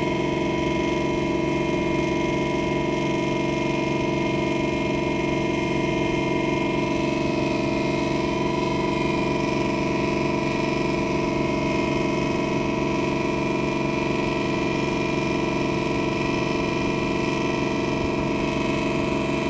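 A river boat's engine running steadily, a constant hum on several fixed pitches that does not change in speed.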